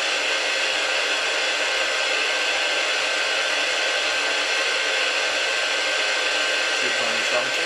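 Kitchen radio playing a steady static hiss through its speaker. It is untuned because it lost its station programming when it was unplugged.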